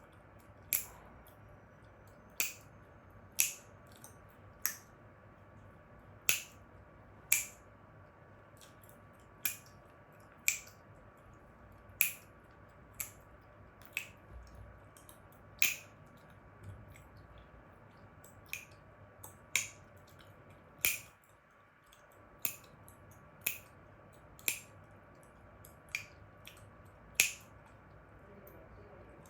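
Chewing gum snapped and cracked in the mouth: about twenty sharp pops at uneven intervals, roughly one a second.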